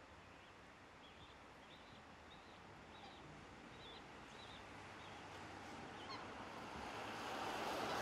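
Day-old black swan cygnets peeping: a series of short, thin, high calls, about two a second, that fade out after about six seconds. A steady rushing hiss swells under them near the end.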